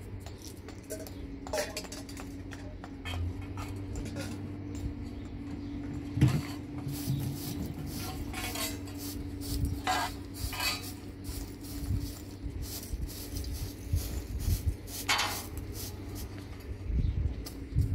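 Irregular clicks and knocks of objects being handled, the sharpest about six seconds in, over a steady hum.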